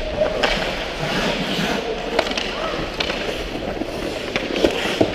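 Youth ice hockey play heard from on the ice: skate blades scraping and carving over a steady rink din, with several sharp clacks of sticks and puck.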